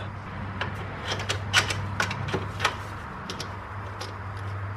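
Scattered light metallic clicks and taps from the long bolt and belt deflection pulley being fitted into the alternator's top mount, most of them in the first half or so, over a steady low hum.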